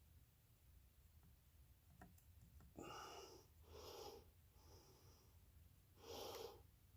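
A person breathing out hard: four short breathy puffs, the first two and the last louder, against near silence.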